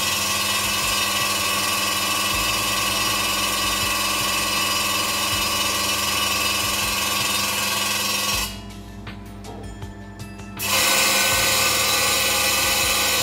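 Bizerba GSP HD meat slicer's built-in sharpener: the sharpening stone grinds against the spinning blade with a loud, steady hiss for about eight seconds, then stops. After a short pause with only a low hum, the honing stone goes on with a brighter, higher grinding hiss near the end.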